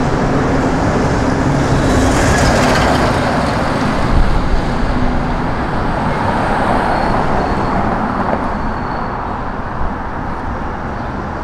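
Busy city street traffic: vehicles passing in a steady wash of engine and tyre noise.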